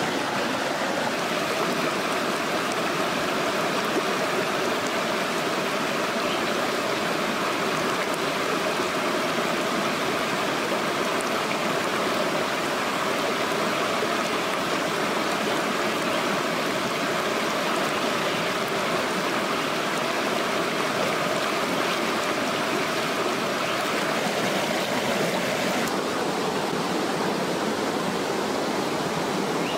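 Shallow mountain stream rushing and splashing over boulders in a steady, unbroken wash of water noise, thinning a little near the end.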